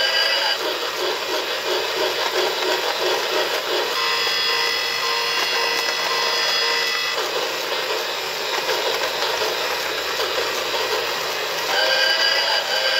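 Lionel 100th Anniversary alarm clock playing its steam-train sound effects through its small speaker: a steady chuffing rhythm, broken about four seconds in by a held steam whistle of about three seconds, then chuffing again, with the whistle starting once more near the end.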